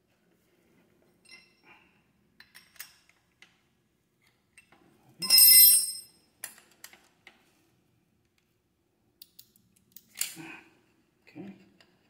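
Metal hand tools and brake hardware clinking during bolt-up work: a few light clicks and taps, then about five seconds in a single loud metallic clank that rings on briefly, followed by more scattered small clicks.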